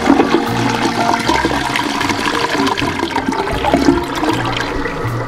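Water rushing and splashing steadily in a toilet bowl.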